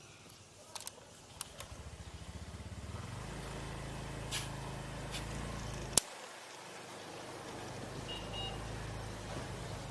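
Small motorcycle engine picking up from idle as the bike pulls away, its firing pulses quickening into a steady low running note. There are a few clicks in the first second and a half, and a sharp click about six seconds in, after which the engine note briefly drops before picking up again.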